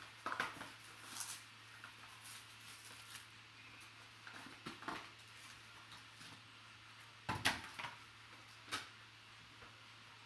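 Scattered clicks, taps and rustles of cardboard boxes and packaging being handled and opened by hand, with a louder knock about seven seconds in and another shortly after. A low steady hum runs underneath.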